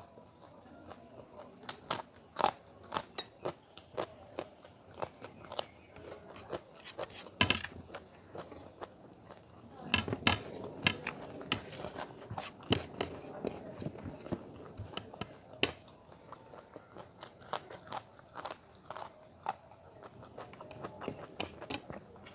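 Close-miked eating sounds: sharp crunchy bites and chewing throughout, with a denser stretch of wet squishing about ten seconds in as a hand mixes and gathers rice and curry on the plate.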